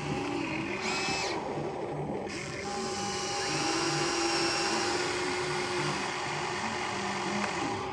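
Small electric motors of a remote-control toy excavator whining steadily, a little louder in the middle.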